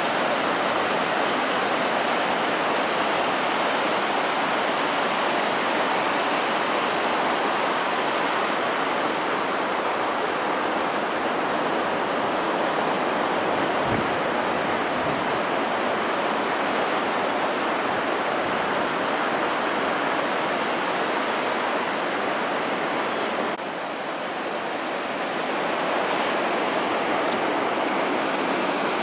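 Small surf breaking and washing onto the beach: a steady, even rush of white water that dips briefly and comes back about 24 seconds in.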